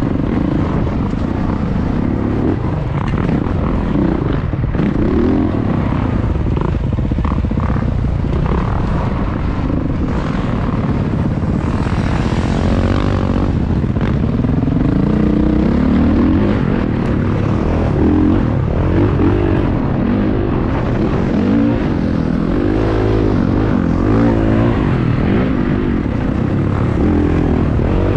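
Dirt bike engine under load, heard from the rider's own bike, revving up and dropping back again and again as the throttle opens and closes along the trail. A steady rushing noise runs beneath it.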